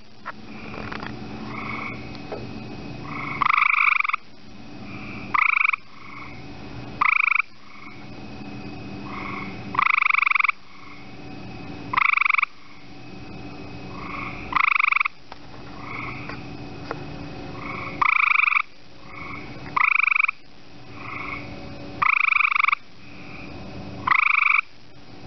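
A small frog calling at night: about ten loud, half-second calls that rise slightly in pitch, one every two seconds or so, with fainter calls from other frogs in between.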